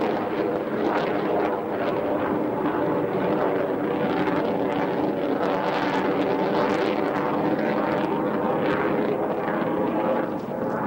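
Steady jet engine noise from a military jet flying overhead, a dense rushing sound with a droning hum in it, dipping slightly near the end.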